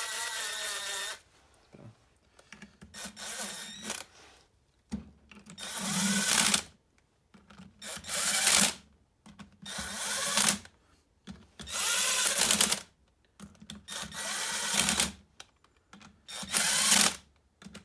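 Cordless drill-driver running in the crown wheel bolts on a limited-slip differential in about eight short bursts of a second or so each, with brief pauses between.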